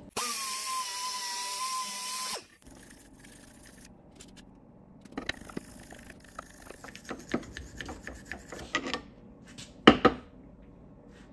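A small electric power tool spins with a steady high whine for about two seconds while cleaning inside the rust-pitted bore of a clutch slave cylinder. It stops, and quieter metal scraping and clicks of hand work follow, with one sharp clack near the end.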